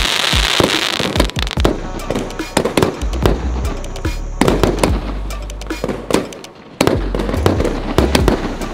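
A multi-shot aerial firework cake firing: a rapid string of launch thumps and bangs, with shells bursting and crackling overhead. About six seconds in the shots briefly fall away, then start again suddenly and loudly.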